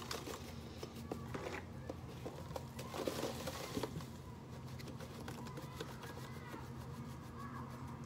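Borax powder trickling slowly from its cardboard box into a measuring cup, with faint taps and rustles of the box and a couple of soft pours about a second in and again around three seconds in.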